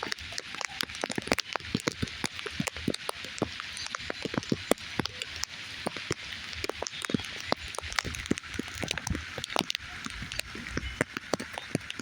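Rain falling: a steady hiss with many irregular drops tapping sharply on a nearby surface.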